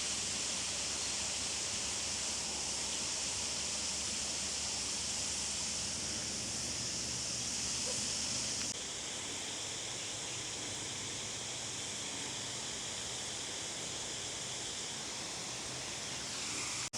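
Steady outdoor ambience in the bush: an even high hiss, with a low rumble underneath that drops away abruptly about nine seconds in.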